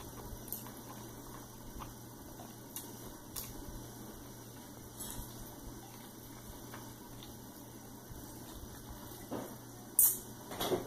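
Quiet eating sounds: chewing, and wooden chopsticks stirring noodles in a porcelain bowl, with a few faint clicks and a sharper clatter of chopsticks against the bowl near the end, over a steady low room hum.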